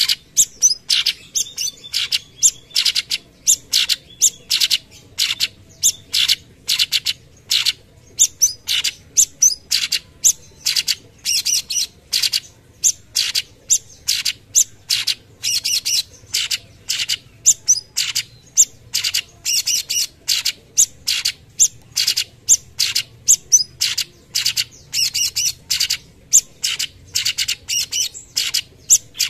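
Orange-bellied leafbird (cucak cungkok) singing a long unbroken run of short, sharp notes, about three a second: the rapid 'tembakan' bursts prized in this bird's song.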